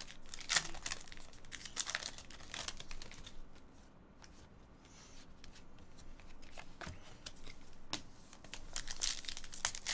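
Foil trading-card pack wrapper being torn open and crinkled in the hands, a dense run of sharp crackles. After a quieter stretch of light card handling in the middle, there is more wrapper crinkle near the end.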